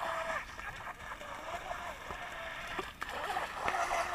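Whine of an RC speed boat's small brushless inrunner motor as the boat circles at speed, with the hiss and splash of its spray. The whine drops back about half a second in and comes up again, bending in pitch, about three and a half seconds in.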